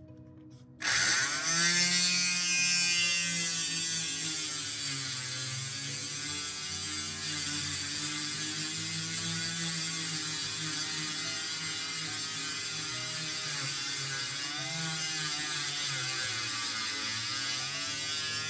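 Handheld rotary tool with a diamond tube drill bit grinding into a glass pane. The motor starts about a second in, its pitch rising as it spins up, then runs steadily with a wavering pitch while it cuts.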